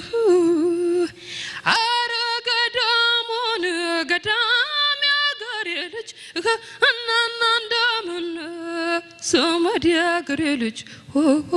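A woman singing unaccompanied into a microphone, a slow Amharic song with wavering vibrato on long held notes and short ornamented runs between them.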